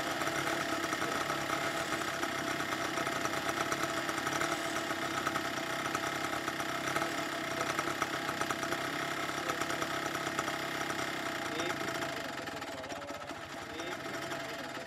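Auto-rickshaw's small single-cylinder engine running under way, heard from inside the cabin: a steady drone with a fast, even pulse. It grows quieter in the last few seconds.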